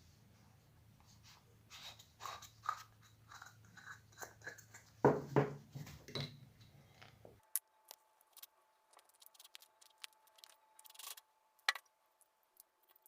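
A series of small clicks, taps and scrapes, like parts being handled on a bench, with the sharpest knocks about five seconds in. About seven seconds in, a faint low hum stops and a faint steady tone begins under sparser clicks.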